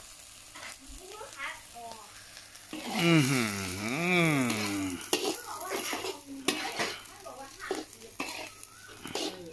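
Metal spatula scraping and clinking against a wok as June beetles are stir-roasted, with sizzling. About three seconds in, a long wavering call, voice-like, rises and falls in pitch for about two seconds.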